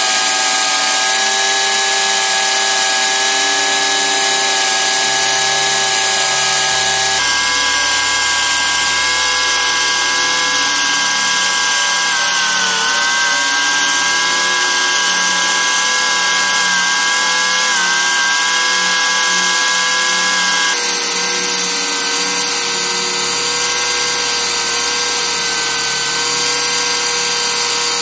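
Angle grinder clamped to a bench, running with a sanding disc as a steel knife blank cut from an old saw blade is ground against it, a steady high whine. The pitch dips briefly twice near the middle.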